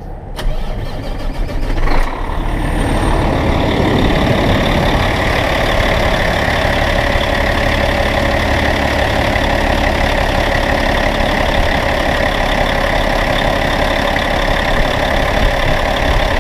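Freshly overhauled Cat C13 inline-six diesel in a Kenworth T800 starting up, catching about two seconds in and then idling steadily.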